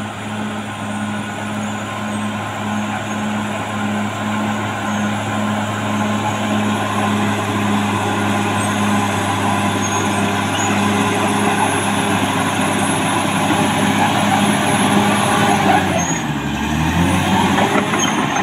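Caterpillar D6R XL crawler dozer's diesel engine running steadily under load while pushing soil, with a thin high whine above the engine note. About sixteen seconds in, the engine pitch drops briefly and then climbs back.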